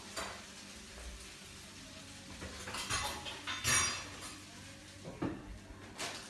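A few short clinks and knocks of hard objects being handled, spread irregularly over several seconds, the loudest a little past the middle.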